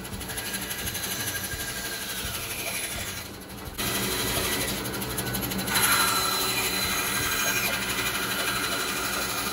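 Bandsaw running and cutting through plywood: a steady motor hum with the rasp of the blade in the wood, dipping briefly a little past three seconds, then growing louder about six seconds in.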